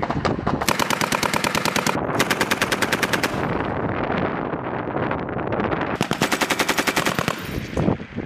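M240B 7.62 mm belt-fed machine gun firing three long bursts of rapid automatic fire, the second following straight on from the first and the third near the end. Gunfire keeps rumbling at a lower level between the bursts.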